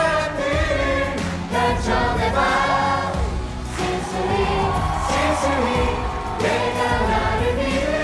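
Several voices singing a song together in chorus over instrumental backing music.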